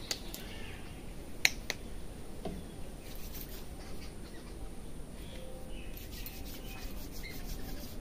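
Fingers rubbing and working hair against the scalp in a head massage, with sharp hair-cracking snaps: two loud cracks close together about a second and a half in, and a run of fine crackles near the end.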